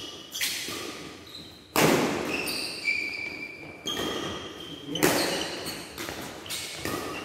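Badminton doubles rally: rackets smacking the shuttlecock about once a second, each hit echoing in a large hall, with shoes squeaking on the court floor between shots.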